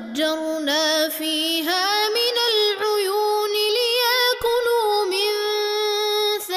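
A man chanting the Quran in melodic tajweed recitation, drawing out long held notes with ornamented turns in pitch.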